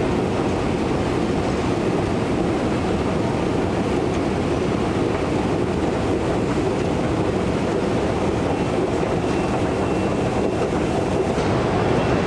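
Steady rumble of a London Underground Jubilee line station, with train noise, growing a little louder near the end.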